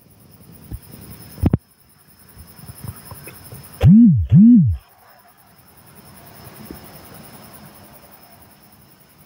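Crickets chirping steadily in the night. Near the middle come two loud, short pitched sounds about half a second apart, each rising and then falling in pitch.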